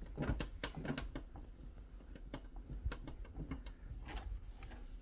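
A cloth rubbing and wiping over the outside panels of a dishwasher, with irregular light taps and clicks.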